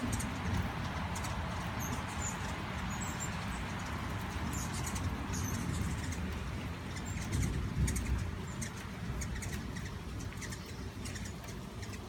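Hummingbirds chittering around the feeders: many short, high chips, thicker in the second half, over a steady hiss of rain.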